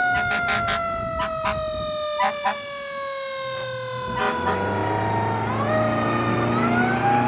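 Fire engine siren slowly winding down in one long falling wail, then winding back up near the end, with a run of short sharp blasts over it in the first few seconds. The truck's engine comes up as a low steady hum about four seconds in as it passes.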